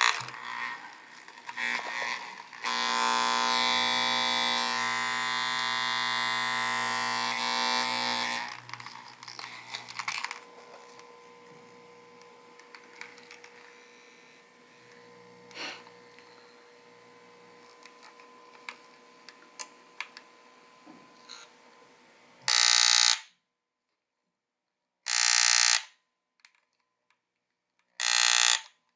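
Aoyama electric massager making an abnormal buzzing noise. A loud, steady buzz starts a few seconds in and lasts about six seconds, then falls to a fainter hum. In the last several seconds come short loud buzzes, about 2.7 seconds apart, each cutting off sharply.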